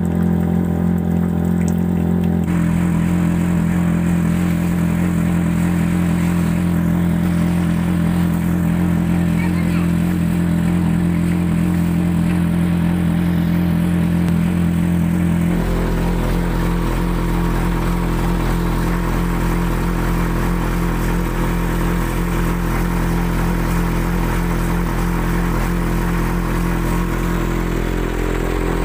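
Tractor engine running steadily, driving the vacuum pump of a sewer suction tanker as it draws sludge through the hose. The steady drone changes abruptly twice, about two and a half seconds in and about halfway through.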